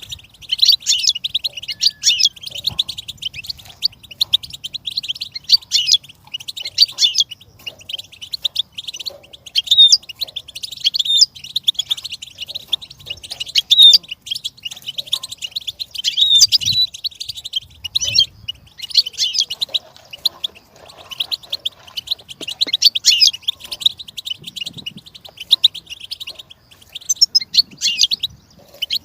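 Goldfinch singing: runs of rapid, high twittering phrases, each a second or two long, with short pauses between them.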